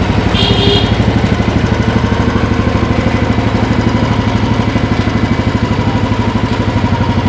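Royal Enfield Bullet 350's single-cylinder four-stroke engine idling with a steady, even beat of firing pulses.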